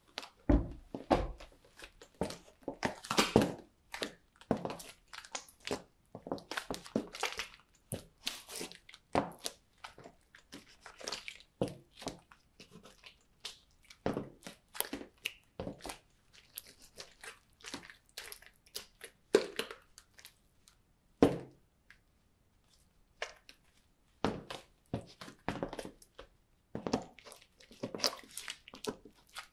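Green slime being squashed under high-heel platform sandals: irregular squelching and crackling as the soles press, smear and lift off the sticky slime, with a few sharp knocks of the heel and platform sole on the laminate floor.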